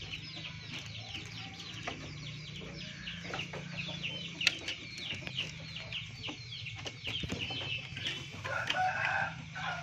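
Background chickens calling continuously: a dense run of short, high, falling calls from many birds over a faint steady hum, with a few sharp clicks and a louder, lower call about eight seconds in.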